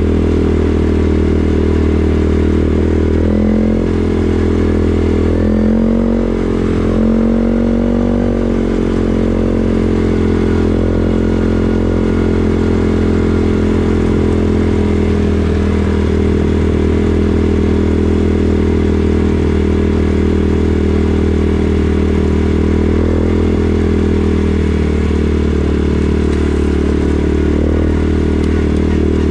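CFMoto 450S ATV's single-cylinder engine running under way, its pitch rising and falling a few times with the throttle in the first several seconds, then holding fairly steady.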